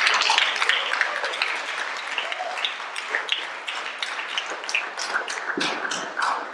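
Audience applauding and cheering, dying away over a few seconds.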